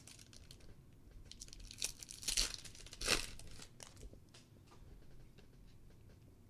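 A foil trading-card pack from a box of 2014 Panini Prizm World Cup is torn open, its wrapper crinkling, loudest about two to three seconds in. Light clicks of the cards being handled follow.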